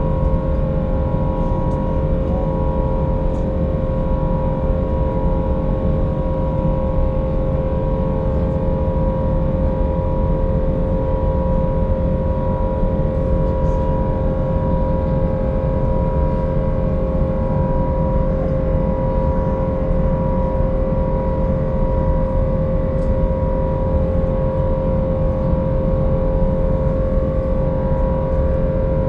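Steady cabin noise of an airliner in flight: an even low rumble with a constant hum of engine tones over it.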